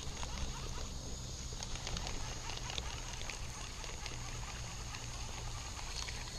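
Baitcasting reel being cranked to reel in a small hooked fish, with a run of light ticks and rattles from the reel and line over low handling rumble. A steady high insect trill goes on behind it.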